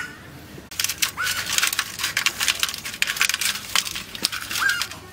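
Turmeric-coated rohu and katla fish pieces being turned and rubbed by hand in a steel colander with salt and mustard oil: a dense run of wet squelches and clicks against the metal, starting just under a second in. A crow caws briefly twice in the background.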